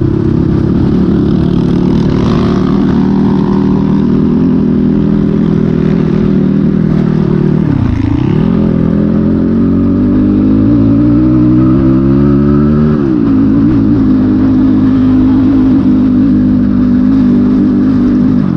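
Dirt bike engine running hard while riding off-road, its pitch following the throttle: it drops off sharply about eight seconds in, climbs steadily for several seconds, falls back, and drops off again at the end.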